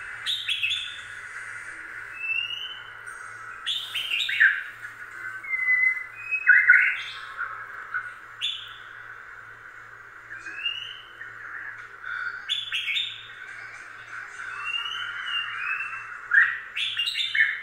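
High chirping calls: a short arched chirp every three to four seconds, with sharper squeaky calls in between, over a steady hiss.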